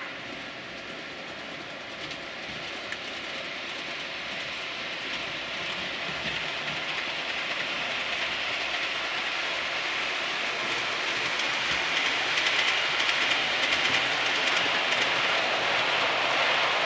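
Model train running on the layout's track: a steady rumble of wheels on rail with rapid fine clicking over the rail joints, growing louder as the train comes nearer.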